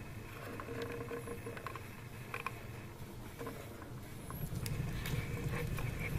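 Faint scattered clicks and soft rustling in a quiet room, with a low rumble coming up about four seconds in.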